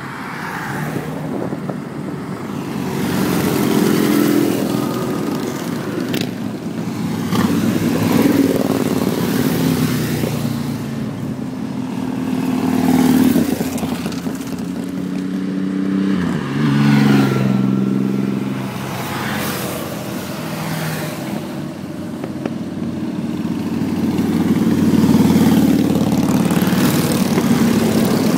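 A motor vehicle engine running steadily, its pitch dropping and then stepping up about two-thirds of the way through as it changes speed.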